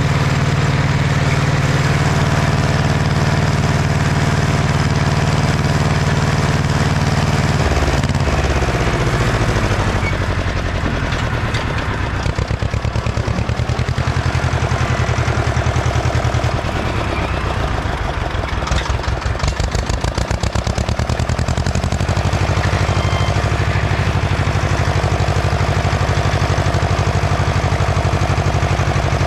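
Ursus C-335 tractor's two-cylinder diesel engine running steadily. About eight seconds in the revs drop, and for roughly twelve seconds it runs slower with a distinct chugging beat, then picks back up to a steady run.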